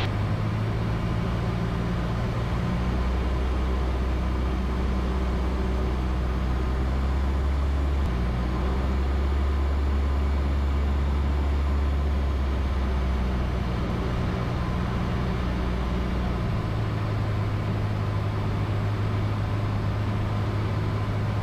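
Cessna 172's piston engine and propeller droning steadily in the cabin on landing approach. The low hum shifts in pitch a few times as the engine speed changes.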